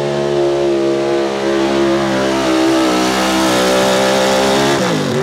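Chevy small-block V8 in a 4x4 street truck pulling a weighted sled, held at high revs with a slight waver. Near the end the revs drop sharply as the engine is let off at the end of the pull.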